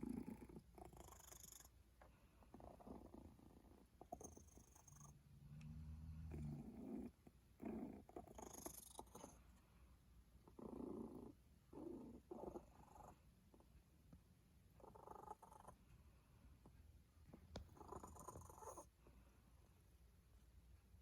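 Faint, noisy breathing of a cat with cat flu (a feline upper respiratory infection), each breath a short rush of noise under a second long, coming irregularly every one to three seconds. The congested breathing is on the mend, much better than at its worst.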